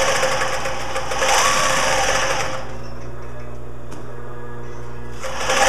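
Singer 20U industrial sewing machine stitching a zigzag through fabric at speed. The stitching stops about two and a half seconds in, leaving its clutch motor humming steadily. Stitching starts again near the end.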